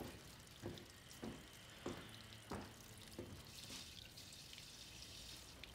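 Kitchen tap running faintly into a sink, with five soft drips or knocks about half a second apart in the first half.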